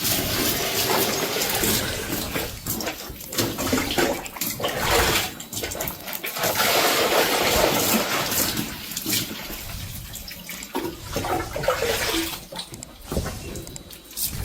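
Water splashing and sloshing in irregular surges.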